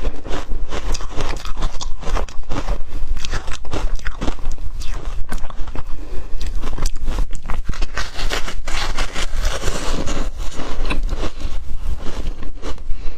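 Ice being bitten and chewed up close, a dense run of crisp crunches and crackles, with a grindier, hissing stretch past the middle as the ice is ground down.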